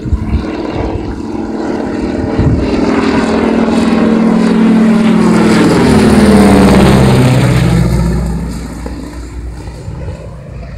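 Single-engine crop-dusting airplane flying low directly overhead. The engine and propeller drone builds to its loudest about six seconds in, then drops in pitch and fades as the plane moves away.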